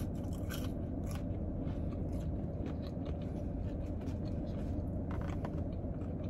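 Close-miked chewing of fries, with scattered small crisp crunches and clicks over a steady low hum.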